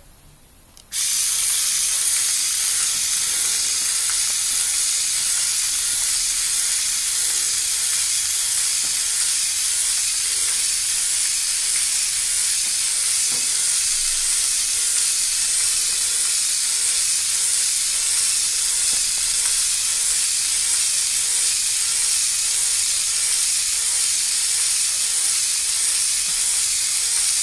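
A LEGO Technic electric motor switched on about a second in, then running steadily with a loud hissing whir as it drives the gears of a two-legged walking toy, with a faint regular beat from the stepping mechanism underneath.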